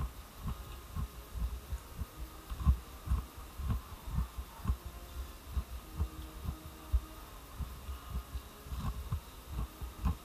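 Irregular dull low thumps, two or three a second: handling noise from a moving camera.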